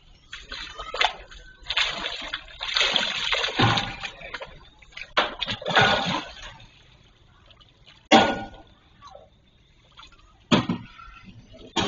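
A large hooked striped catfish (cá tra) thrashing at the pond surface, churning and splashing the water in heavy bursts for about six seconds, then throwing up a few sharp single splashes.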